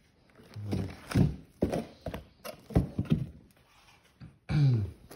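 Cardboard firework cake boxes being handled and set down: a run of knocks and thuds over a couple of seconds. A short wordless voice sound comes about a second in, and another near the end.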